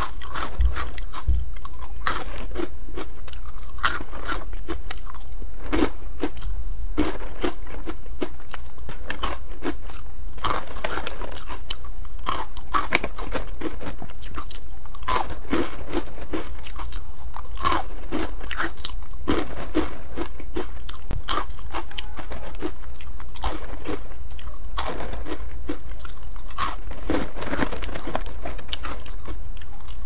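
A person biting and chewing hard, crunchy penne-shaped pasta pieces: many sharp, irregular crunches one after another.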